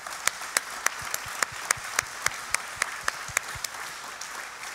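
Audience applauding. One nearby clapper's loud, sharp claps stand out at about three or four a second for the first three and a half seconds, and the applause thins toward the end.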